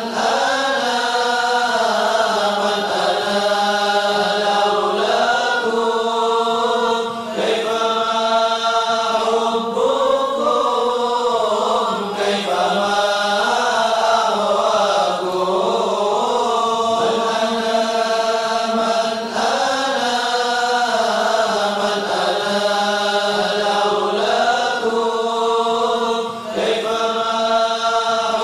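Arabic devotional chant (qasidah) sung with long, slowly winding held notes, running on without a break.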